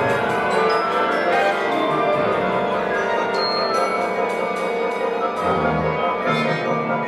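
Orchestra playing contemporary concert music: dense held chords under repeated struck notes that ring on high, like mallet percussion.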